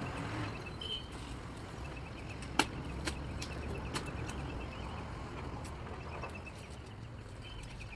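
A few sharp knocks, the loudest about two and a half seconds in and two lighter ones after it, over a low steady rumble with faint high chirping.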